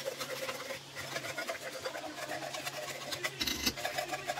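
Minced-meat spaghetti sauce sizzling and crackling in a wok on the stove, over a steady low hum, with a louder bump about three and a half seconds in.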